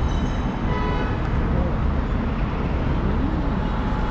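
Steady rumble of road traffic, with a short tone about a second in.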